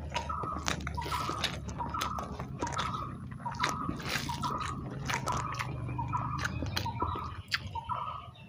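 Close-up eating by hand: chewing and lip-smacking with many sharp wet clicks as fingers mix soft rice with fish curry. Behind it, a short two-note tone repeats about once a second.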